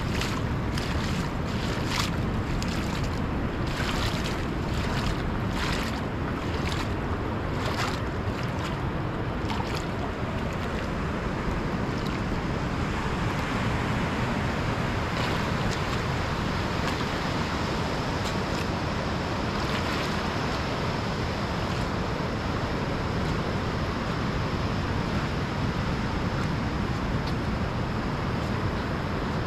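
Ocean surf washing steadily, with wind on the microphone. During the first ten seconds or so there are short sharp clicks about once a second.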